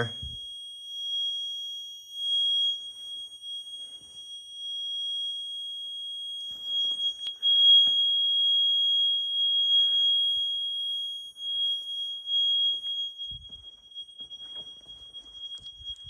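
Alarm buzzer on a standby generator's control panel giving one unbroken, high-pitched steady tone. It signals the generator's low-fuel alarm.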